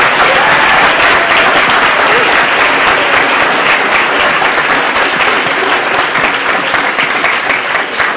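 Audience applauding: dense, steady clapping that thins a little near the end.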